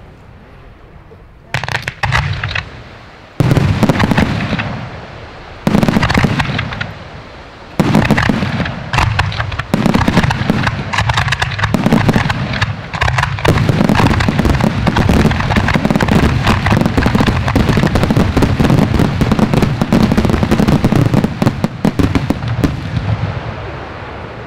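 Aerial firework shells bursting in the sky: four single bursts a couple of seconds apart, then a dense barrage of rapid bangs lasting about fifteen seconds that thins out near the end.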